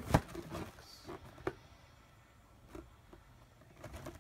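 Cardboard shoebox handled and turned in the hands: a few short knocks and rubs, the loudest right at the start, with a quiet stretch in between.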